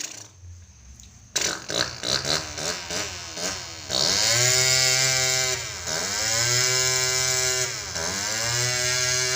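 A child's mouth imitation of a revving engine, like a chainsaw: a string of short sputters, then from about four seconds in three long buzzing revs, each dipping in pitch and climbing back up.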